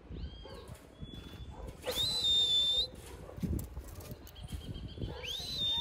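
High-pitched whistling: a couple of short, faint whistled notes, then two stronger whistles that each slide up and hold level for about a second, the first about two seconds in and the second near the end.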